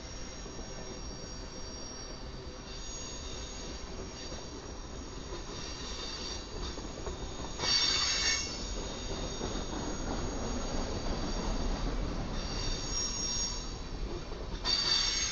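Freight train tank cars rolling past, their wheels rumbling steadily on the rail. The wheels squeal high-pitched several times, loudest in a short burst about halfway through and again near the end.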